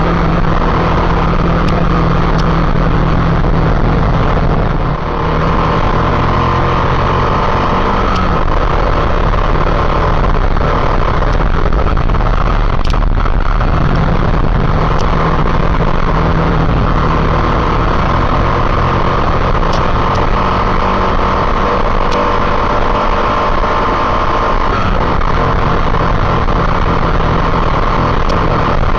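Motorcycle engine running steadily at riding speed over a heavy low rumble, dipping briefly about five seconds in.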